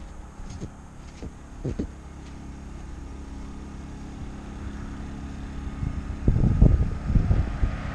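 A steady low machine hum, with a few light clicks early on and louder, irregular low rumbling from about six seconds in.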